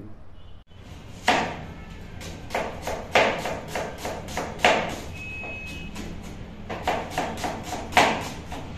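Kitchen knife chopping a red onion on a plastic cutting board: irregular knocks of the blade striking the board, starting about a second in, with a quicker run of strokes near the end.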